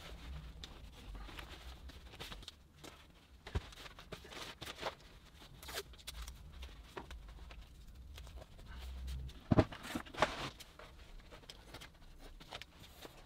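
Plastic bin bag rustling and crinkling as it is spread out and handled on a workbench, with a few light knocks, the loudest near the ten-second mark.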